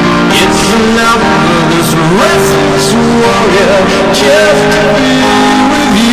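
Music: a song with a melody that slides and wavers over held chords.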